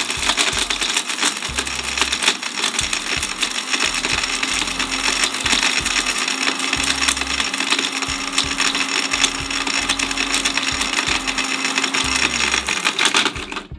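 Vidiem mixer grinder running with whole dried turmeric in its jar: the motor's steady whine under a dense crackling rattle of hard pieces being smashed by the blades. It cuts off shortly before the end.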